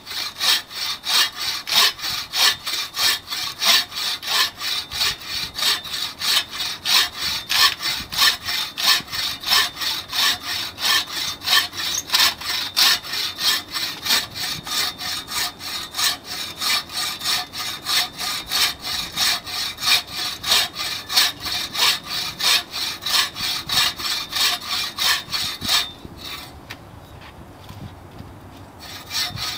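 TrailBlazer 24-inch takedown buck saw cutting through a log about ten inches thick, the blade rasping through the wood in steady push-pull strokes about two a second. The sawing stops for a few seconds near the end, then starts again.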